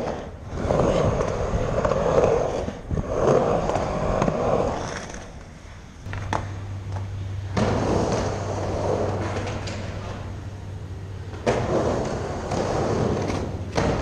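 Skateboard wheels rolling across a vert ramp in repeated passes, each swelling and fading as the board goes up and down the transition, with a few sharp clacks of the board.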